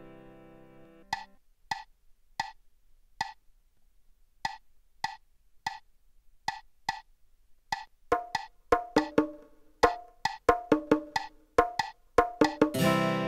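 Percussion played on iPads through a PA: short, sharp, pitched knocks in a sparse, halting rhythm. About eight seconds in, a lower-pitched knock joins and the pattern turns denser. A sustained chord comes in near the end.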